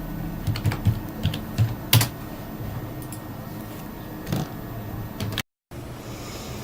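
Computer keyboard keystrokes: a quick run of clicks over the first two seconds, then a single keystroke a little past four seconds, with a brief dropout to dead silence near the end.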